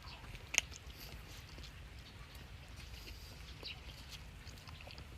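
Faint chewing and wet mouth clicks of someone eating lobster meat dipped in chili oil, with one sharper click about half a second in.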